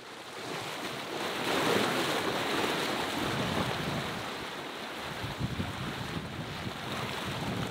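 Wind buffeting the microphone over the sea rushing and splashing along the hull of a sailing yacht under way, fading in over the first second, with a few low knocks about five seconds in.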